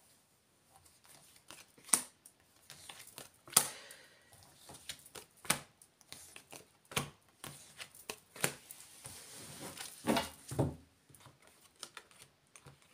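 Oracle cards being dealt one at a time onto a spread on a table mat: about seven sharp card slaps a second or two apart, with soft sliding of cards in between.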